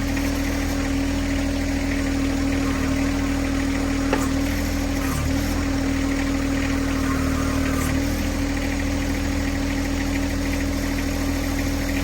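John Deere 1026R compact tractor's three-cylinder diesel engine running steadily at a low idle, with two brief dips about five and eight seconds in.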